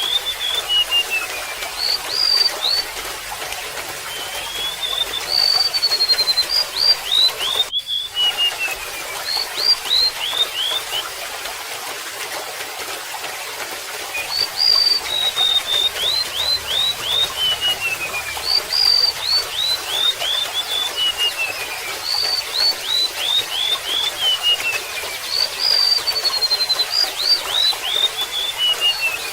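Golden-bellied gerygone singing phrases of high, thin whistled notes that slide down in pitch, each phrase repeated every few seconds, over a steady trickle of water. The song breaks off for about three seconds near the middle.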